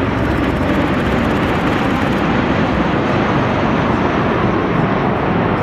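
V-22 Osprey tiltrotor flying low past: a loud, steady rush of proprotor and engine noise.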